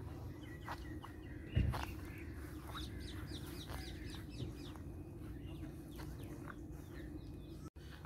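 Birds chirping, many short calls scattered throughout, over a steady low outdoor rumble, with one thump about one and a half seconds in.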